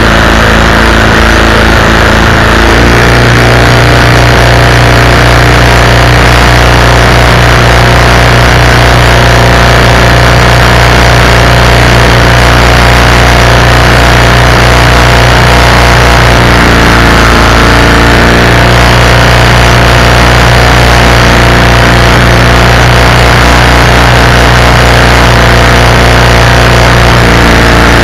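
Predator 212cc single-cylinder four-stroke engine running loud and steady while driving the canoe's propeller shaft under way. Its pitch shifts about three seconds in, again a little past halfway, and once more near the end.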